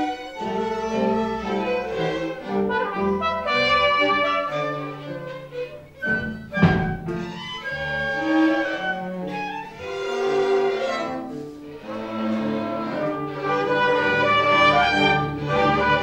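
A school orchestra playing: violins and cello with wind instruments, changing notes throughout. A single loud hit lands about six and a half seconds in.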